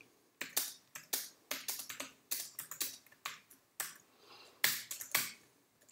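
Typing on a computer keyboard: a run of separate keystroke clicks at an uneven pace, with short gaps between bursts.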